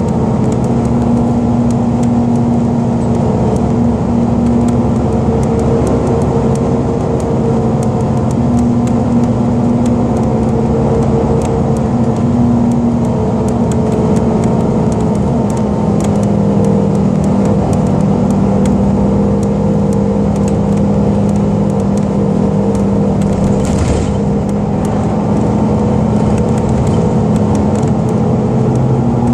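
Cabin sound of a 2010 Gillig BRT 30-foot transit bus under way: a steady engine and drivetrain drone whose pitch steps up and down as it changes speed, with light ticks throughout and a short hiss near the end.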